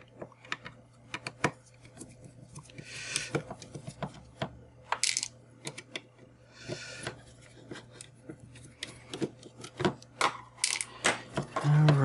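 Small hand tools working on a 5G router's teardown: a precision screwdriver clicking and scraping against tiny screws and the device's plastic and metal parts, with light ticks of small metal parts and a few short scrapes.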